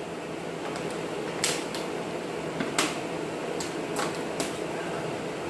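Eating and drinking noises at a table: a handful of sharp clicks and crackles over a steady low hum.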